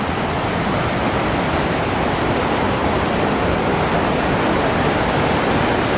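Mountain stream rushing over rocks: a steady, loud rush of water.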